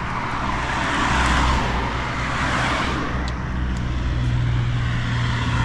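Highway traffic: a vehicle passes close by, its rushing road noise building to a peak a little over a second in and easing off, over a steady low engine hum.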